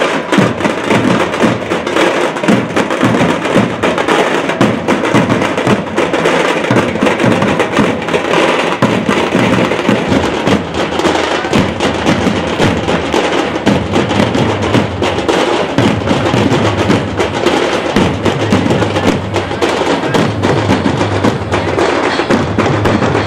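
Dhol-tasha drum band playing continuously: sharp, rapid tasha strokes over the deeper beat of the dhols, loud and unbroken.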